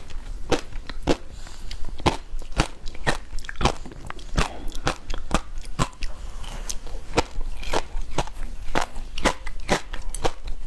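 Rock candy being bitten and chewed close to the microphone: an irregular run of sharp crunches and cracks, a few every second.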